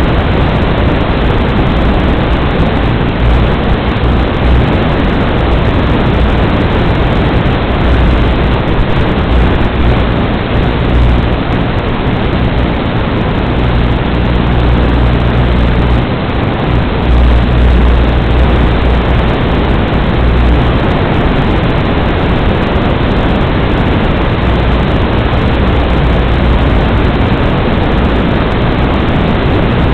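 Loud steady hiss of static from an analog FPV video link's audio, with a low hum that swells and fades.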